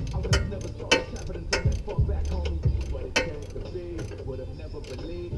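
Ratchet wrench being worked on the exhaust sleeve clamp bolts under a car: sharp metallic clicks about every half second.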